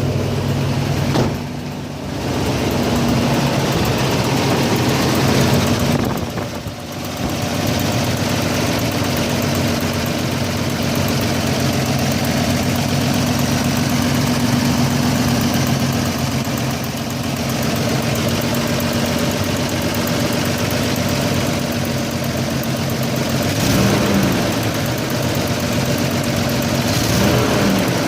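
Car engine idling steadily after a start, its level dipping briefly twice in the first seven seconds and its pitch wavering slightly near the end; the owner suspects a vacuum leak.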